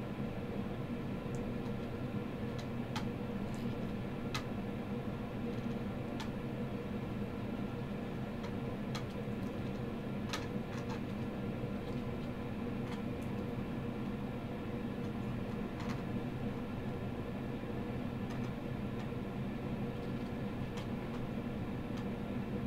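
A steady low hum with a dozen or so faint, irregular ticks as a soldering iron tip and solder wire touch a circuit board while solder is melted onto its pads.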